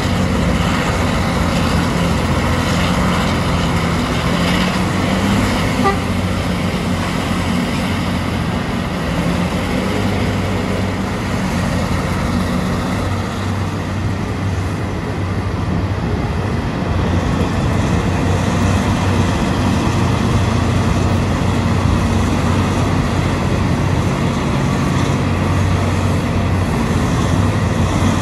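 Terex RH170 hydraulic mining front shovel's diesel engines and hydraulics running steadily and heavily while it digs and swings, the engine note dropping to a lower pitch about halfway through.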